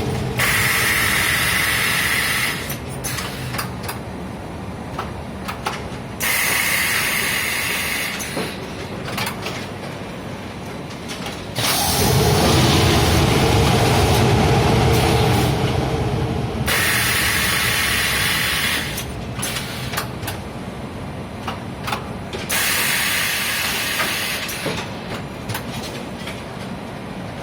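Textile-factory goods-wrapping machine running: a steady mechanical clatter, with a loud hiss that comes in for about two seconds every five or six seconds.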